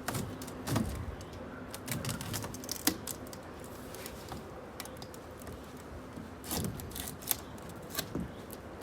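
Scattered clicks, taps and light knocks of hands working on the polycarbonate greenhouse.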